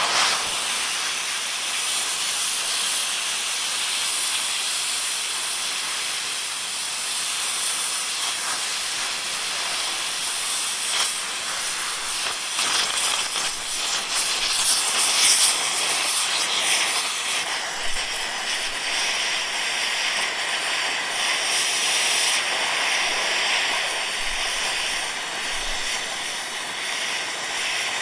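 Steady hiss of an oxy-fuel torch flame playing on an apple, with a few crackles about halfway through as the skin chars.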